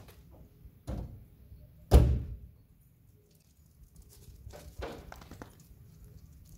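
A saloon car's boot lid being shut: a lighter thump about a second in, then a loud slam a second later as the lid closes.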